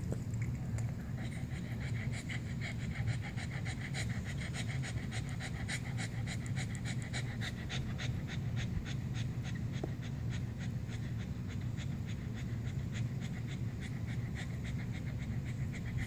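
Cavalier King Charles spaniel panting hard while lying at rest: a fast, even run of short breaths, over a steady low hum.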